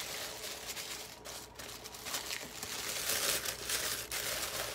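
Tissue paper crinkling and rustling as it is pulled and crumpled by hand, a little louder in the second half.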